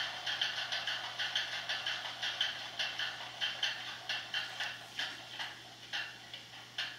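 Model diesel locomotive's sound decoder playing a diesel engine shutdown. The engine's exhaust beats slow down and fade away, stopping near the end.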